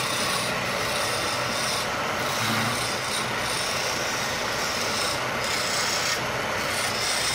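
A wood lathe running while a hand-held turning tool scrapes and cuts a spinning wooden baluster blank: a steady rasping hiss that swells and eases as the tool is worked along the wood, over the low hum of the lathe.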